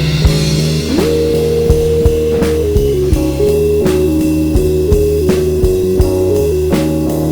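Instrumental rock music: a lead guitar plays long held notes, sliding between pitches, over bass and a drum kit beat.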